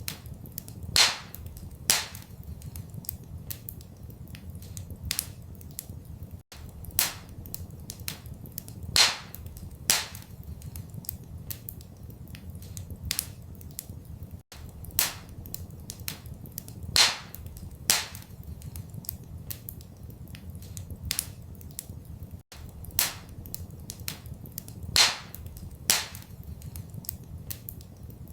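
Wood fire crackling in a fireplace, with sharp pops several times a second or two apart over a low steady rumble. The same run of pops repeats every eight seconds, a short looped recording.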